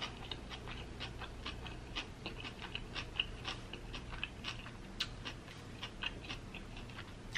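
Close-miked chewing of a mouthful of coleslaw: a stream of small wet crunches and mouth clicks, irregular, several a second.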